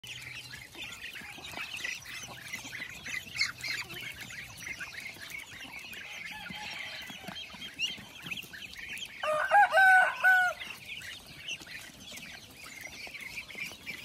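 A flock of young ducks and chickens, with a constant chatter of high peeping and clucking. About nine seconds in, a rooster crows loudly for about a second and a half.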